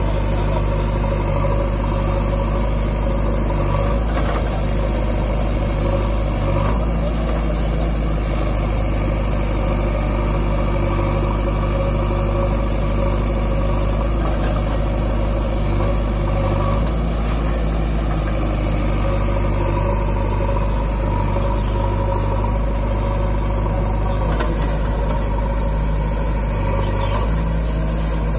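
A JCB 3DX backhoe loader's diesel engine running steadily, with small shifts in its note every few seconds as the machine works.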